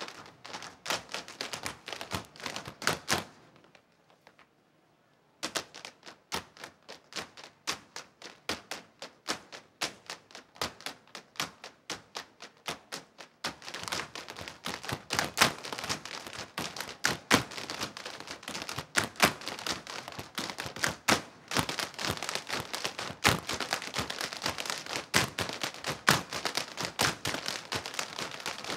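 Irish dance hard shoes striking the stage in a group percussive routine: rapid clicking taps and heavier heel thuds, with no music heard. The taps stop for about two seconds a few seconds in, then resume and grow denser and louder from about halfway.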